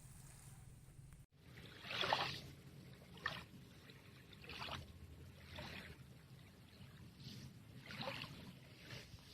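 Shallow seawater splashing in short, irregular swishes, roughly one a second, with the loudest about two seconds in, over a low steady rumble.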